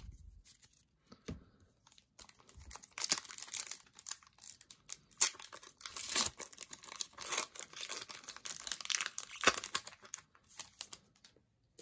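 Foil wrapper of a Pokémon trading card booster pack crinkling and tearing as it is opened by hand: a run of sharp crackles starting about three seconds in.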